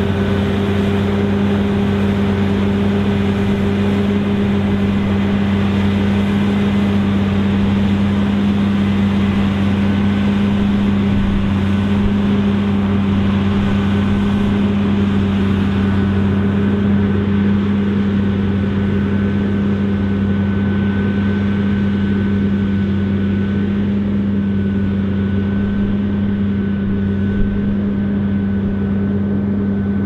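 John Deere X9 1100 combine harvester running steadily under load while harvesting canola: a constant, even machine drone with a steady low hum.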